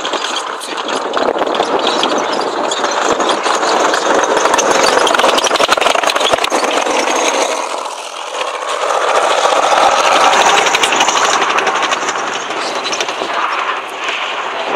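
Soviet T-34-76 tank driving past close by: its V-12 diesel engine running under the dense clatter of its steel tracks. It is loud, swelling twice with a short dip about eight seconds in.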